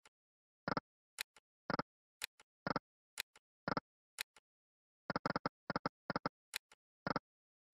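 Online video slot game sounds: short electronic clicks and blips, some in quick clusters and some single, as the reels are spun and stop, with dead silence between them.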